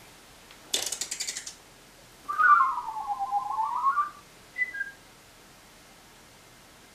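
A quick rattle of clicks, then a pulsing whistle that dips in pitch and climbs back up over nearly two seconds, followed by two short, higher whistle notes.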